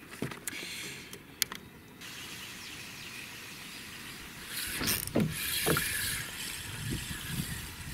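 Fishing reel being cranked to retrieve line, a steady mechanical whirr that gets louder about halfway through, with a couple of sharp clicks near the start.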